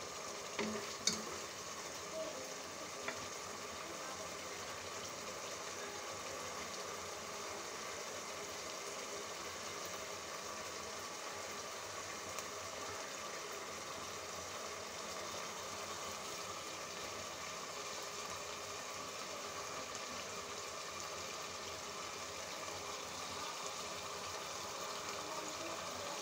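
Chicken pieces frying in ghee and tomato masala in a pot, a steady sizzling hiss: the bhuna stage, with the ghee starting to separate from the masala. A spoon clicks against the pot a few times in the first few seconds.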